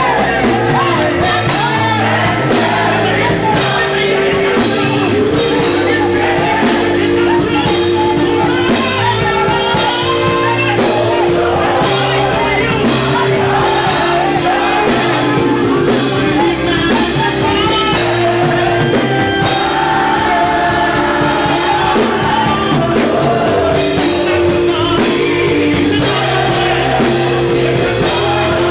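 Live gospel worship song: a male lead vocalist sings into a microphone over a band playing held chords and a steady drum beat.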